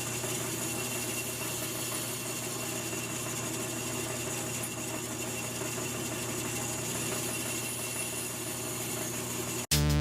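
Electric motor of a shop power tool running steadily, a constant hum over a wide hiss. It cuts off abruptly near the end.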